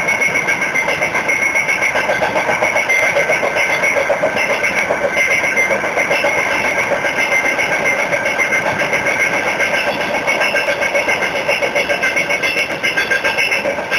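Freight train in motion: steady rattling and clatter of the wheels on the rails, pulsing evenly, with a steady metallic ringing over it.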